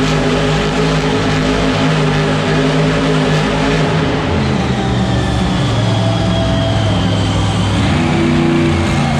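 Monster truck engine running loud and steady, its pitch shifting a few times, with music from the arena sound system beneath.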